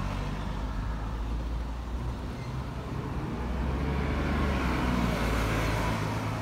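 Steady low engine rumble, with a rush of noise swelling in the second half, as of a motor vehicle passing.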